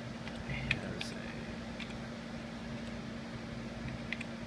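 Steady whir of cooling fans with a constant low hum, broken by a few faint clicks about a second in and near the end.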